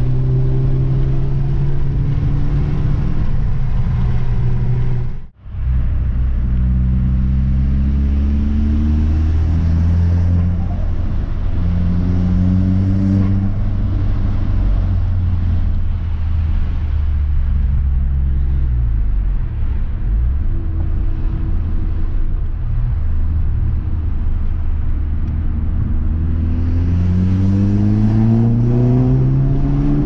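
Audi S3 8P's turbocharged four-cylinder engine heard from inside the cabin while driving. Its note rises in pitch with acceleration several times, most strongly near the end, and the sound drops out briefly about five seconds in. It is running smoothly, its misfire cured by new spark plugs and coil packs.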